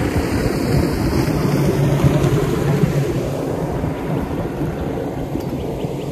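Wind rumbling on the microphone on an open boat, with a steady low hum underneath. Faint quick ticking comes in near the end.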